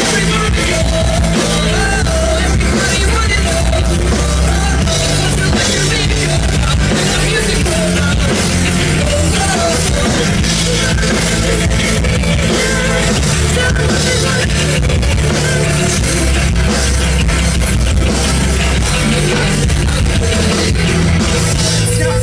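Live rock band playing through the stage PA with a singer, loud and dense, heard from within the crowd on a phone microphone.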